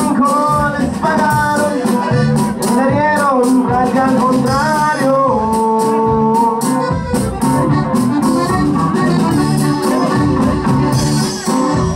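Live norteño band playing a dance number: accordion melody over electric bass and a steady drum beat.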